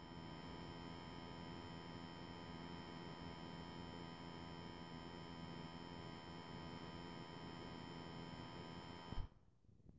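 Steady electronic hum of many fixed tones over a faint muffled rumble, picked up by a Samsung phone's microphone while it is submerged. It cuts off with a click about nine seconds in.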